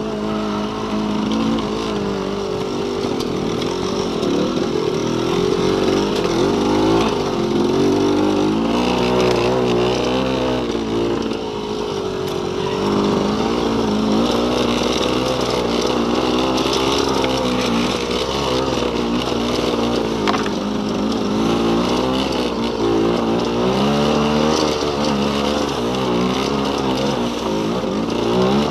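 Trail motorcycle engine being ridden over a rough, rocky track, its revs rising and falling constantly as the throttle is worked, over steady wind and rattle noise.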